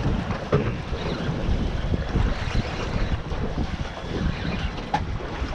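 Wind buffeting the microphone over open sea, with water lapping against a small boat's hull and a couple of light knocks, about half a second in and near the end.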